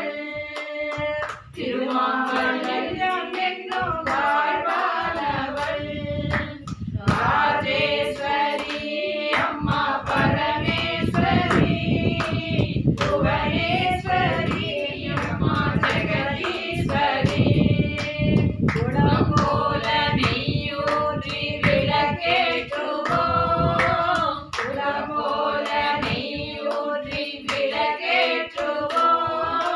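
A group of women singing a Hindu devotional bhajan together, keeping time with a steady rhythm of hand claps.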